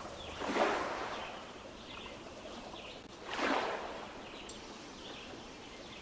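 Small lake waves lapping and splashing against shoreline stones, two swells of splashing about three seconds apart over a steady wash of water.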